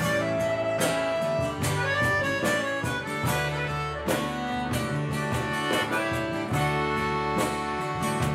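Instrumental intro of a norteño ballad: a button accordion plays held melody notes over strummed acoustic guitar, electric bass and cajón, before any singing.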